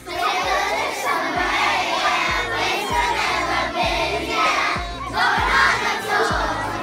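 Pop song with a steady kick-drum beat of about two strokes a second, with a group of children singing along.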